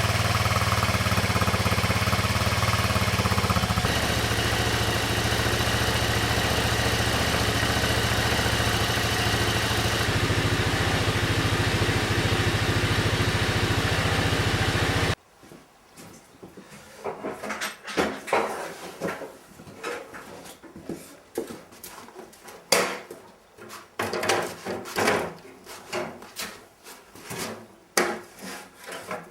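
A 150 cc ATV engine running steadily, which stops abruptly about halfway through. It is followed by scattered irregular clicks and knocks.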